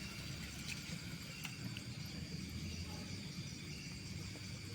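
Night insect chorus, crickets trilling steadily in high, even tones, with a few faint ticks.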